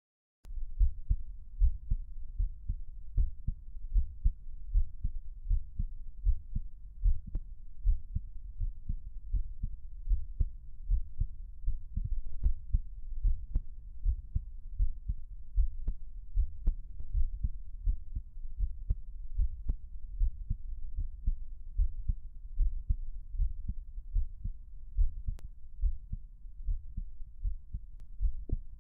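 A man's heart beating, recorded close up: a steady, even rhythm of low, dull thumps.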